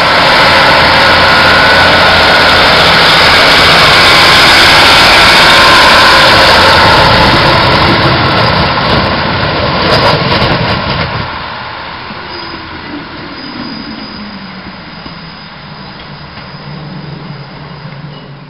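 Class 156 diesel multiple unit passing close by, its underfloor diesel engines loud at first, then fading as it draws away. About two-thirds of the way through, the engine note falls.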